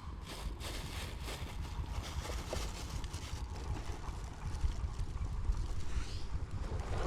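Wind rumbling on the microphone, with a few short scratchy sounds in the first second or two.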